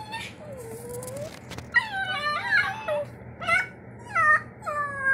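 Small dogs whining while play-wrestling: a string of high, falling whimpers and yelps, several in quick succession.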